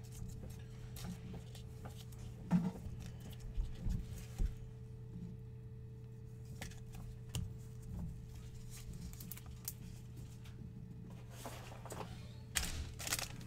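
Trading cards and clear plastic pack wrapping handled on a table: scattered soft taps and rustles over a steady low electrical hum, with a louder rustle of plastic near the end.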